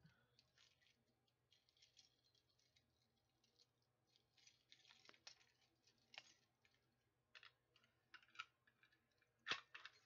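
Faint clicks and light scrapes of a metal fire alarm pull station and its key being handled, with one sharper click near the end.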